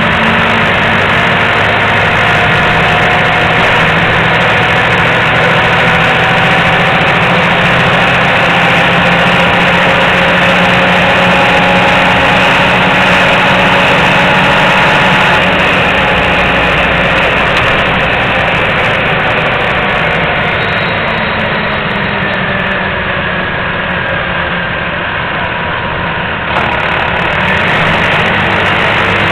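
Nova Bus RTS transit bus engine and drivetrain running, with a faint whine that rises and falls in pitch as the bus speeds up and slows. It eases off a little past the middle and picks up again near the end.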